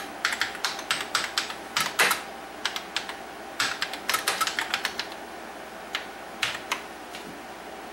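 Typing on a TRS-80 Model 4's keyboard: quick runs of key clicks with short pauses between them, thinning to a few single presses in the last few seconds.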